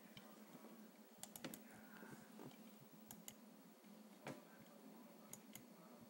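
Faint, scattered clicks of a computer mouse, several of them in quick pairs, over a faint steady hum.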